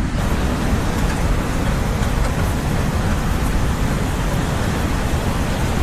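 Ocean surf: a steady rushing roar of waves.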